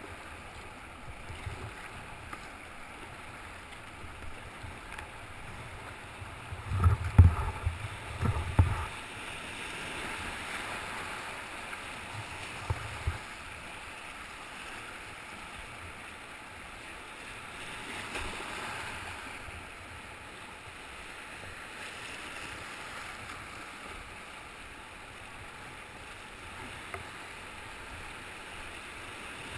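Whitewater rapids rushing steadily around a kayak as it runs downstream. About seven to nine seconds in comes a cluster of heavy thumps, and a couple of short knocks a few seconds later.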